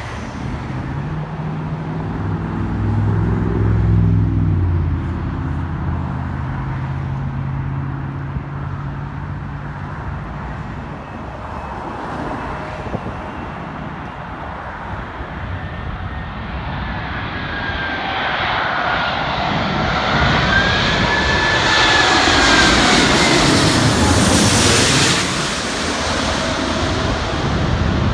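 Qantas Airbus A380's four Rolls-Royce Trent 900 turbofans on landing approach, passing low overhead: a jet rush that builds through the second half to its loudest shortly before the end, with an engine whine that arcs up and then down in pitch as the aircraft goes over.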